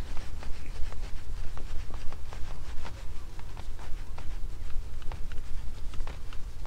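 Cloth rubbed hard back and forth over a camping car's over-cab panel to scrub off ingrained black streaks. It makes an uneven stream of small scuffs and ticks over a steady low rumble.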